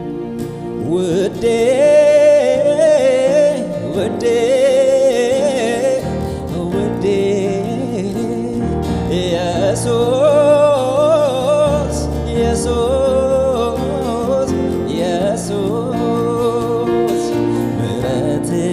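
Man singing a gospel song, his voice wavering on held notes, over keyboard and acoustic guitar accompaniment. The singing comes in about a second in and runs in phrases over steady chords.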